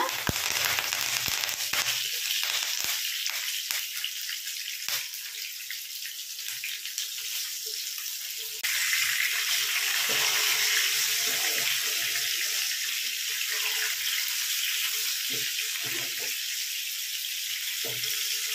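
Pomfret fish pieces shallow-frying in oil in a nonstick pan: a steady sizzle, with sharp crackles near the start as curry leaves go into the hot oil. The sizzle turns suddenly louder about nine seconds in.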